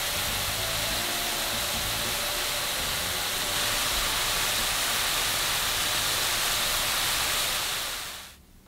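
Diced apple sizzling and bubbling in a frying pan as it cooks down in its juices, a steady even hiss that fades out near the end.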